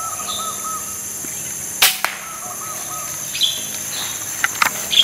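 A single sharp crack of an air rifle shot about two seconds in, fired at a squirrel, over a steady high-pitched insect drone and birds chirping. A few smaller clicks follow near the end.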